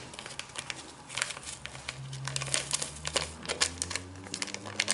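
Small packet of grated lemon zest being crinkled and shaken out over a mixing bowl: a quick run of sharp crackles.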